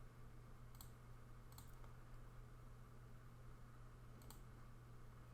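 A few faint computer mouse clicks, about a second in, a quick pair around a second and a half, and one more near the end, over a low steady hum.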